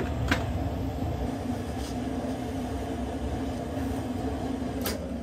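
Residential hot-water heating boiler and its circulator pump running: a steady low hum and rumble. A light click comes just after the start and another near the end.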